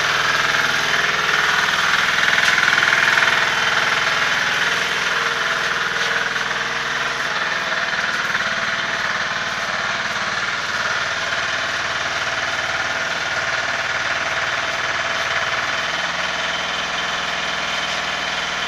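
Small engine, typical of a workshop generator or engine-driven welder, running steadily at an even speed.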